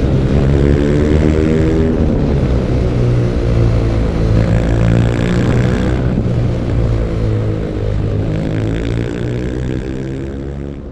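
BMW R nineT Urban G/S's 1170 cc air/oil-cooled boxer twin running under way, its note rising and falling several times with the throttle. It fades out near the end.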